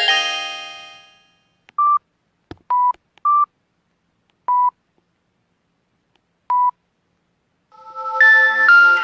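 A Samsung SGH-M620 mobile phone's chiming ringtone melody dies away, then five short keypad beeps sound at uneven intervals, two slightly different pitches, as its keys are pressed. Near the end another bright electronic phone melody begins.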